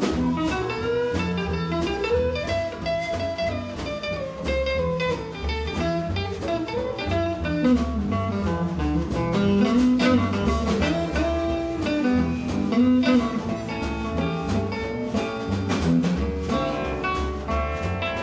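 Acoustic blues band playing an instrumental break with guitar and a steady bass and drum pulse, under a lead melody that slides up and down between notes.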